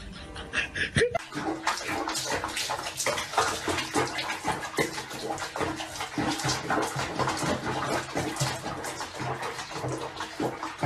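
Bathwater sloshing and splashing in a small basin around a cat being bathed in soapy water, an irregular watery wash that starts about a second in.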